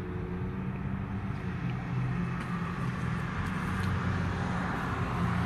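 Steady low rumble of road traffic and engine noise, heard from inside a parked car beside a busy road.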